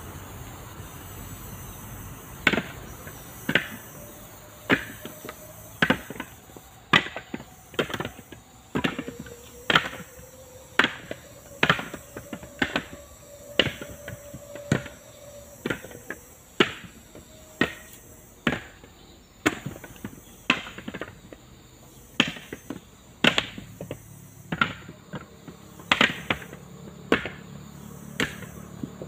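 Husked coconuts tossed one after another onto a pile as they are counted, each landing with a hard knock. The knocks start a couple of seconds in and come about one every half second to a second.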